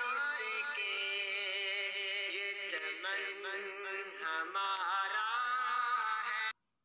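Background music: a chanted, ornamented vocal melody over a steady backing, cutting off suddenly near the end.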